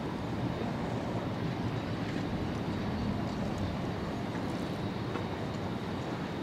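Steady low rumble of distant engines, with no distinct events.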